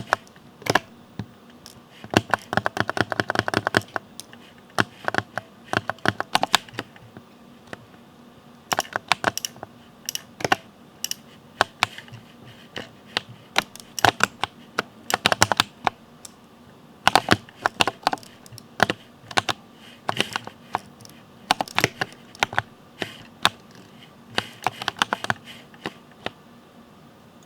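Ducky mechanical keyboard with Cherry MX Speed switches being typed on: irregular runs of quick key clicks and clacks, some fast and dense, with short pauses between runs.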